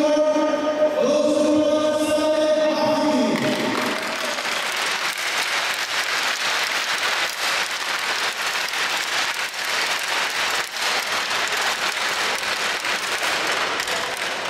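A voice holding long sung notes for the first three or four seconds, then a crowd applauding steadily for the rest.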